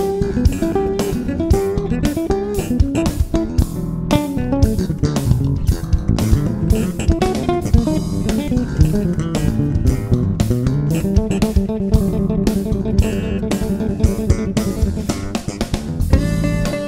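Instrumental funk-jazz played on electric bağlama, bass guitar and drum kit, with a plucked melodic line over a moving bass line and a steady drum beat.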